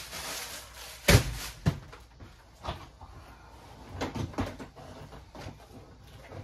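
A hard-shell wheeled suitcase being pulled out and handled, making a run of knocks and thumps. The loudest thump comes just after a second in, with smaller knocks near three and four seconds in, after a brief rustle at the start.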